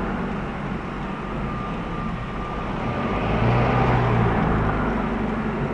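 Car engine running with road noise, heard from inside the cabin as the car drives slowly; the engine grows louder for a moment a little past halfway.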